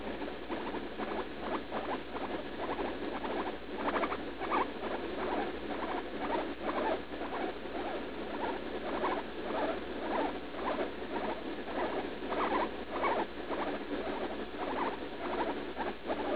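Guinea pig making a steady series of short squeaks, about two or three a second.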